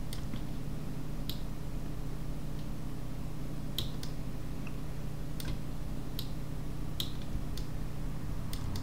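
Computer mouse clicking, sharp single clicks spaced irregularly about once a second, over a steady low electrical hum.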